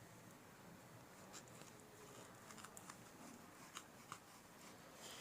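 Near silence, with a few faint light clicks of a knife cutting through rolled-out dough against a rolling board.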